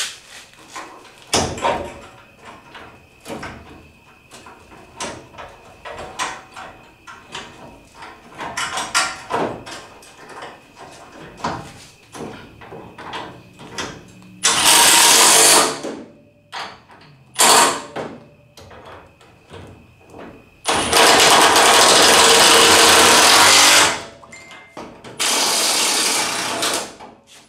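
Knocks and clunks of a car bumper being handled and set in place. Then a cordless impact tool runs in four bursts as it drives the bumper's fasteners: the first starts about halfway through, one is brief, one is long, about three seconds, and the last comes near the end.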